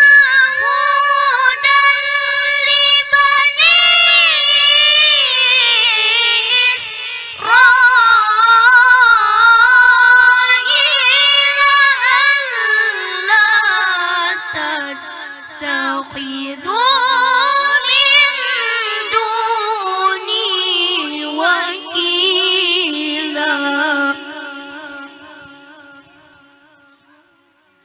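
A boy reciting the Qur'an in melodic tilawah style into a microphone: one voice in long, ornamented held phrases that step down in pitch, trailing off near the end.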